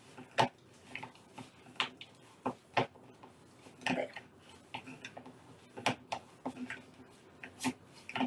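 Cookie dough being mixed and pressed together by hand in a mixing bowl: irregular sharp knocks and clicks against the bowl, the loudest about half a second in.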